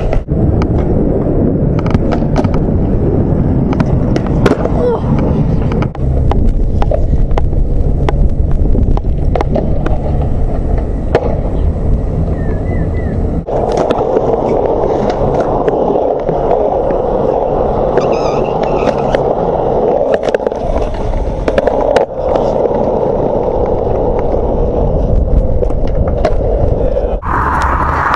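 Skateboard wheels rolling on concrete, with sharp clacks of the board scattered throughout. The rolling noise changes abruptly several times as separate runs follow one another.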